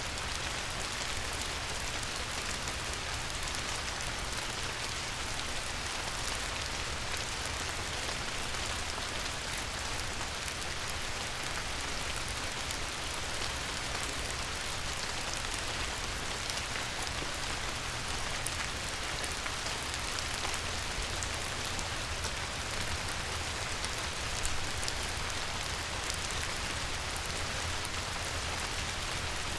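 Light rain falling on a river: a steady hiss of many small drops striking the water, with a low rumble underneath.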